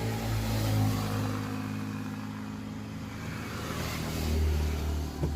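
Car engine running steadily, with a brief swell in loudness and a deeper note about four seconds in.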